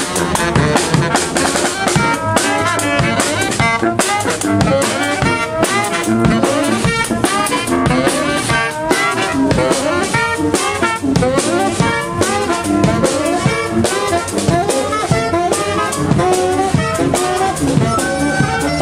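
Street brass band playing: sousaphone, trumpets, saxophone and a marching bass drum with cymbal keeping a steady beat.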